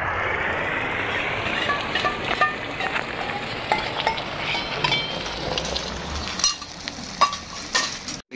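Beaten egg with onion poured onto a hot flat iron griddle and sizzling as it spreads into an omelette. The sizzle swells in the first seconds and eases off after about six seconds, with a few short sharp ticks over it.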